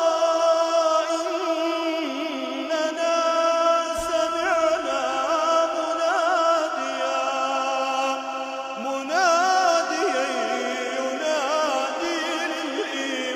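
A man chanting Quran recitation in a melodic tajweed style, holding long, ornamented notes that waver in pitch, with a rise in pitch about nine seconds in.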